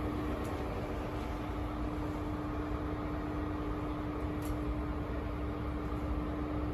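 Steady hum inside a standing GWR Castle Class High Speed Train coach: an even low rumble with one constant mid-pitched tone, from the train's running equipment while it waits at the platform.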